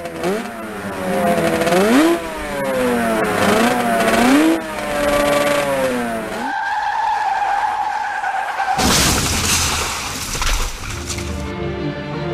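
A motorcycle engine revving up and down several times. About six seconds in, a long tire squeal follows, then a loud crash.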